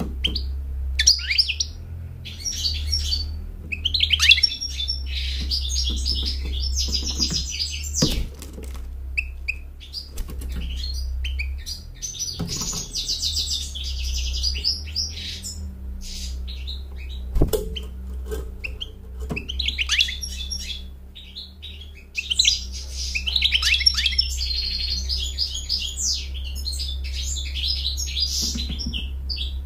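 European goldfinch singing: fast, high twittering song in three long runs with short pauses between. A few sharp clicks and a steady low hum run underneath.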